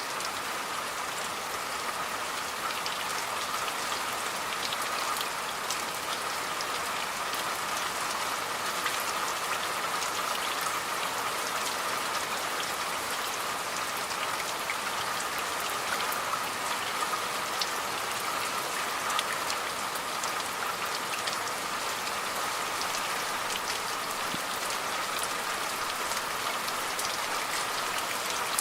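Steady rain falling, with many separate drops ticking on a surface over an even hiss.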